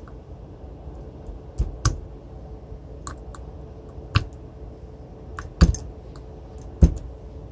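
Sharp clicks and knocks of parts and tools being handled on a workbench during work on an alternator, about five louder knocks spread irregularly among fainter clicks, over a steady low hum.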